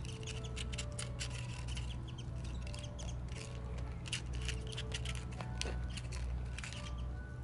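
Sika deer biting and crunching a flat cracker off stone paving: a quick, irregular run of crisp clicks, over a steady low hum and a few short held tones.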